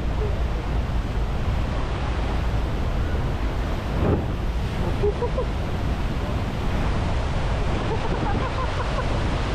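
Steady roar of the Rhine Falls' rushing water heard from a boat close by, with wind buffeting the microphone. Faint voices come through now and then.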